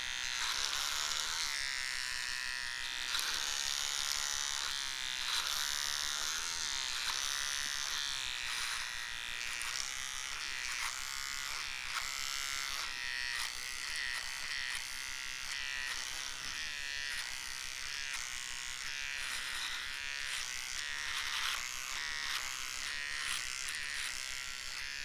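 Electric hair trimmer buzzing continuously, its pitch wavering slightly.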